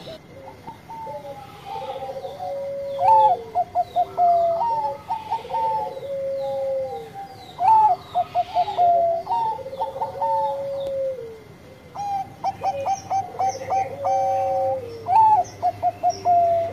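Zebra dove of the Thai 'Bangkok' song breed (perkutut) cooing in its repeated song phrase, about four times. Each phrase is a quick run of short staccato notes followed by a long, lower drawn-out coo that drops at the end.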